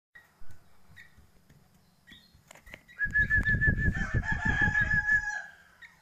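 A long, evenly wavering whistled note starts about halfway in and holds for nearly three seconds. Under it are knocks and rustling from handling at a wooden cage, and a few short chirps from the young sooty-headed bulbuls inside.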